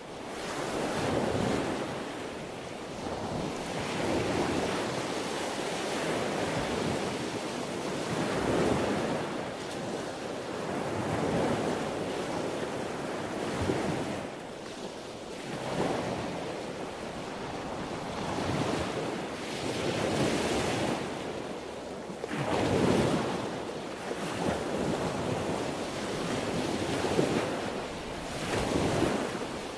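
Sea waves breaking and washing on the shore, a steady rush of surf that swells and falls back every few seconds.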